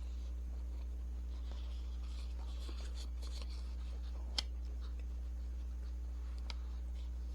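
Steady low hum with faint soft rubbing and rustling, and a single sharp click about four and a half seconds in.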